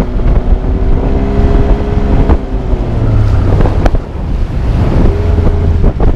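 Small outboard motor running steadily as the boat trolls, under heavy wind buffeting on the microphone, with a couple of sharp knocks in the middle.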